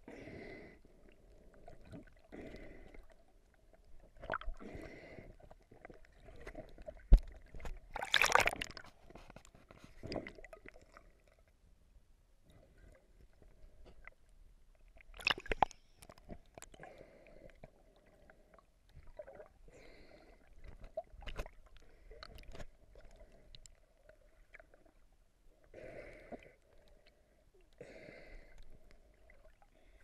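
Underwater sound heard through a submerged camera: water sloshing and gurgling, with scattered clicks and knocks. There is a louder rush about eight seconds in and another near the middle.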